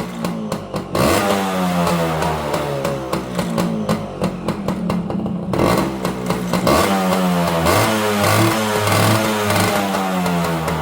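Honda Smile's single-cylinder four-stroke engine being revved repeatedly, its pitch rising and falling with each twist of the throttle, several times over.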